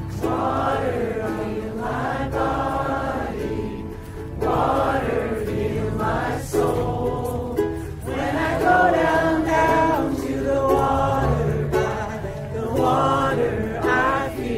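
A group of voices singing a song's chorus together, to a strummed string instrument.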